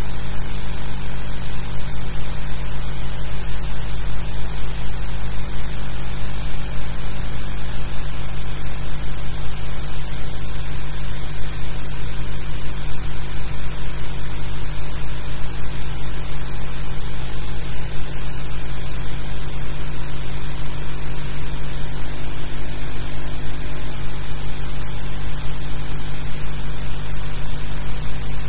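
Steady hiss with a low hum under it, unchanging throughout, with no speech or distinct events. It is the noise floor of an old black-and-white film soundtrack.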